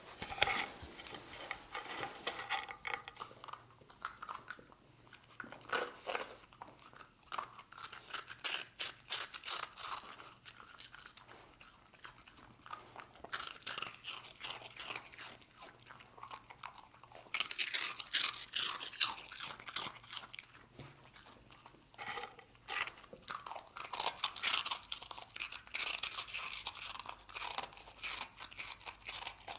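A dog crunching and chewing hard, dry rusk, in runs of crisp crunches with short pauses between.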